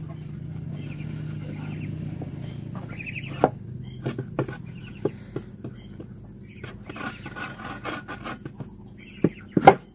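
Scattered wooden knocks and bumps as an electric water-pump motor is shifted on a plank bench against a wooden board, with the loudest knocks near the end. Short chirping animal calls and a low steady hum sit in the background.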